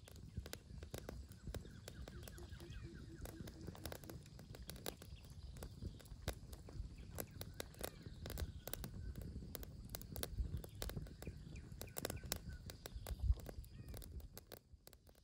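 Small wood campfire crackling with many irregular sharp snaps and a low rumble underneath, as a pot of stew simmers over the flames.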